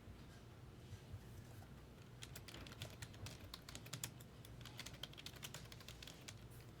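Faint typing on a computer keyboard: a quick run of key clicks from about two seconds in until near the end, over a low steady hum.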